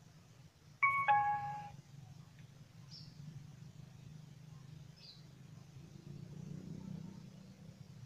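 Short electronic chime from a portable Bluetooth speaker or MP3 player: a click, then a few clean tones stepping down in pitch over about a second. It is the player's status prompt as it is switched into Bluetooth mode.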